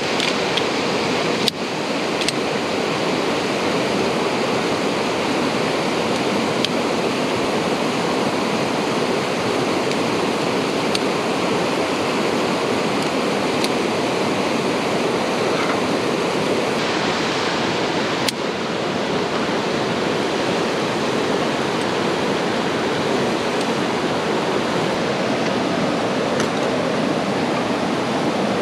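Steady rushing water noise, with two sharp clicks, one about a second and a half in and one a little past the middle.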